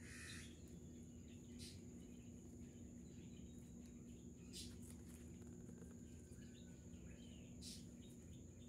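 Quiet outdoor ambience: a steady high insect drone and a low hum, with a few brief bird chirps.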